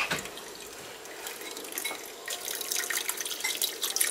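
Liquid trickling and dripping through a wire-mesh strainer into a pot of chile and dried-shrimp broth, busier and louder from about two seconds in.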